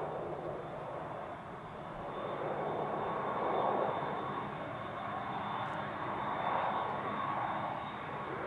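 Airbus A320 jet engines running at low taxi power as the airliner rolls along the runway: a steady jet rush with a thin high whine, swelling and easing a little.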